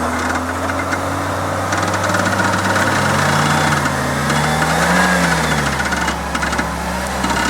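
Off-road 4x4's engine running under load at low speed, its pitch rising and falling as the throttle is worked, with bursts of crackling over a steady low engine tone.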